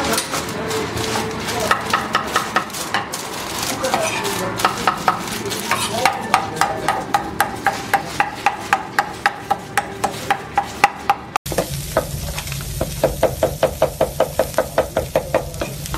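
A large knife chopping meat on a wooden board in a fast, even rhythm of about four strikes a second, from about twelve seconds in. Before that comes a slower run of knocks with a ringing note.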